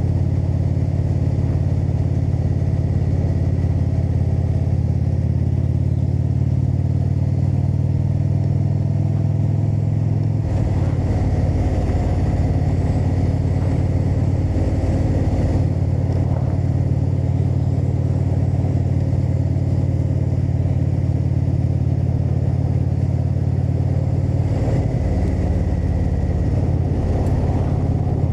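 Indian motorcycle's V-twin engine running steadily under way. Its note changes about ten seconds in and again near the end, as the throttle or gear changes.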